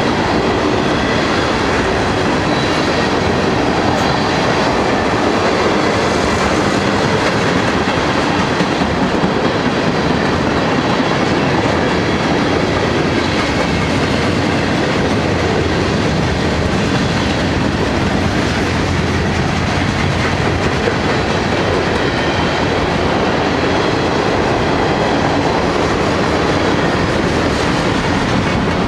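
Norfolk Southern mixed freight train rolling past close by, its cars' steel wheels running on the rails in a steady, loud wash of noise.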